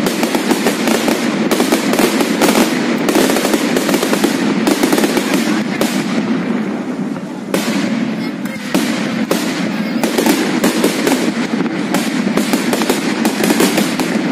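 Aerial fireworks display: a dense, rapid barrage of bangs from bursting shells. It thins briefly about six to seven seconds in, then picks up again.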